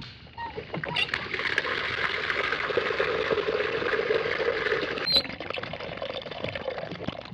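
Water being poured into a small animal water tank, a steady pouring rush that starts about a second in and tails off near the end, with a short click midway.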